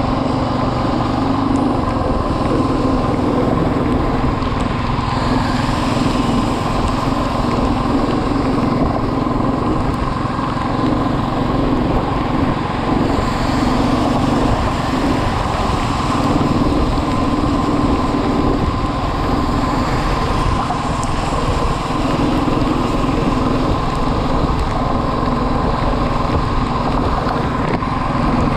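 Motorcycle engine running at a steady pace while riding on the road, with its drone holding an even pitch throughout.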